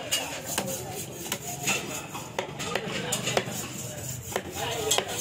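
Knife chopping tuna on a wooden log chopping block: irregular sharp knocks of the blade striking the wood, a few a second, with voices chattering in the background.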